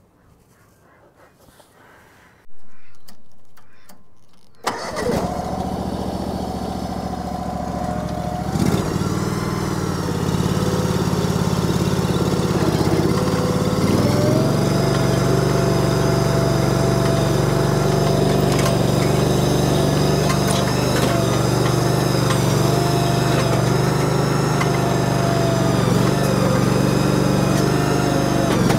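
Engine of a Cardinal shed mover starting about five seconds in, then running steadily. Its speed steps up twice, at about nine and fourteen seconds, as the machine gets under way.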